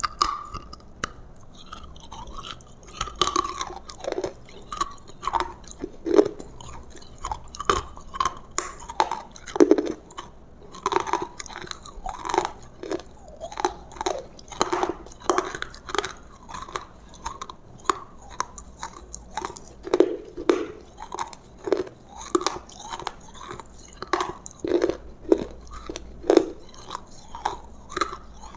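Close-up chewing of roasted food: a steady run of wet chews with sharp crunches and bites.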